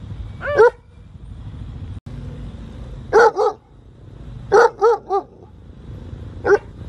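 Young German Shepherd barking: seven short barks in groups, one, then two, then three, then one.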